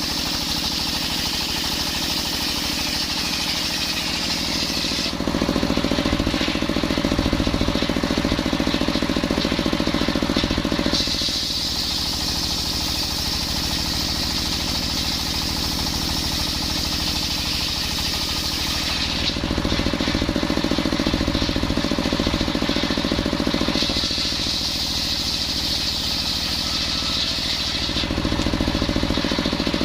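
Engine-driven circular saw mill sawing coconut-palm wood. A steady high whine alternates three times with louder, lower stretches of several seconds each, typical of the blade biting into the log and loading the engine.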